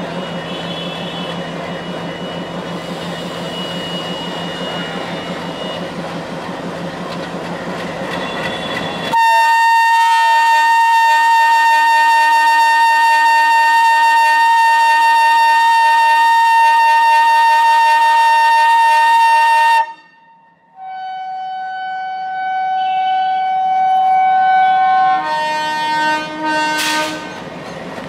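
Diesel locomotive engine idling, then the locomotive's horn sounds loudly about nine seconds in and holds for about ten seconds. After a brief break it sounds again at a lower pitch for a few seconds, with shorter tones near the end.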